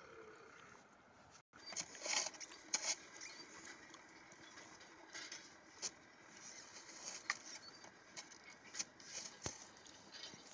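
Toy backhoe digger on a pedal tractor scooping snow: irregular scraping and crunching of the bucket in the snow, with a few sharper clicks from the arm, spaced a second or more apart.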